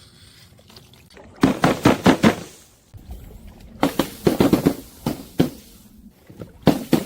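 A series of sharp crunching cracks as objects are crushed, coming in short clusters of several strokes with brief pauses between.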